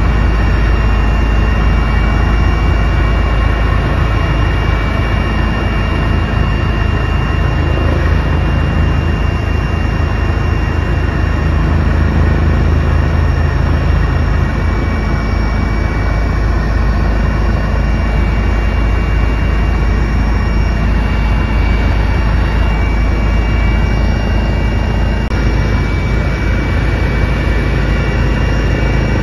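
Helicopter heard from inside the cabin in flight: a loud, steady rumble from the engine and rotor with a few thin, steady high whines over it.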